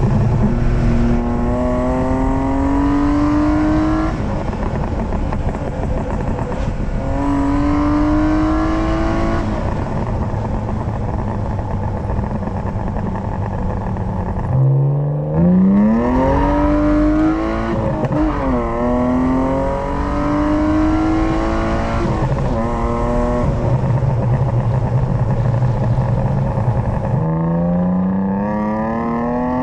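BMW E36 323i's M52B25 2.5-litre straight-six with a K&N intake, pulling hard through the gears: the engine note climbs in pitch and falls back at each shift, several times over, with steadier cruising stretches in between.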